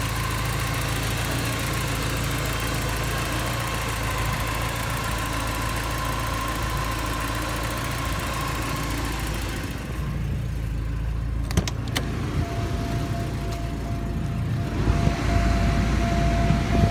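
1986 Porsche 944 Turbo's turbocharged 2.5-litre inline-four idling steadily after a cold start, with a faint high whine over the hum. About ten seconds in the sound turns duller, two clicks follow, then a faint steady tone sits under the idle.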